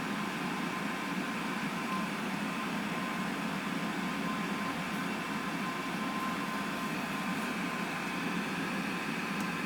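Steady, even background hum and hiss with a faint steady high tone, and no distinct events.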